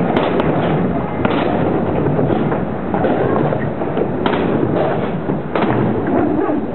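Skateboard wheels rolling over concrete, with a few sharp clacks of boards striking the ground.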